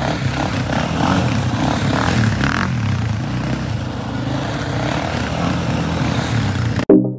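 Two ATV engines, a Can-Am DS 250 and a second sport quad, revving up and easing off as the quads spin circles on loose gravel. The engine sound cuts off suddenly near the end, and a run of plucked musical notes takes over.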